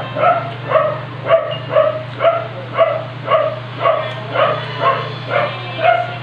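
A dog barking repeatedly and evenly, about two short barks a second, over a steady low hum.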